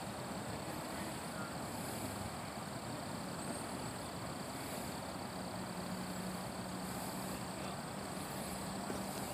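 Outdoor night ambience: insects calling in short high-pitched pulses every couple of seconds over a steady background noise, with a low steady hum joining about halfway through.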